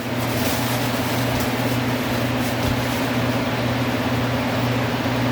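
Food sizzling in a frying pan on the stove: a steady hiss that comes up at the start and holds, over a low electrical hum.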